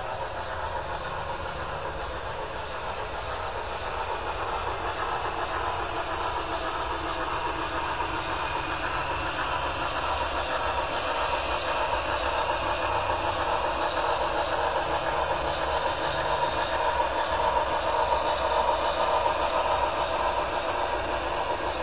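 HO-scale model train running on the layout's track: a steady, even running noise with no clear beat, growing gradually louder.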